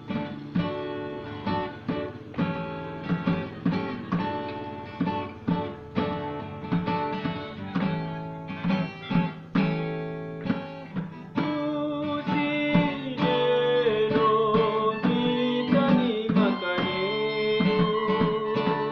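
Guitar strummed in a steady rhythm, with a singing voice joining in a little past the middle.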